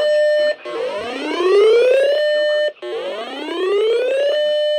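Electronic whooping alarm tone: a buzzy pitch that rises over about a second and a half, holds for a moment, cuts off and starts again, nearly three times. It is an alert signal for a severe thunderstorm warning.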